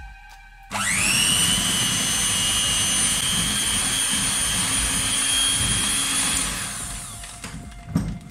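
Electric hand mixer switched on about a second in, its motor whine rising to a steady high pitch as the beaters work flour into a yolk-and-sugar mixture. The motor runs down and stops near the end, followed by a single sharp knock.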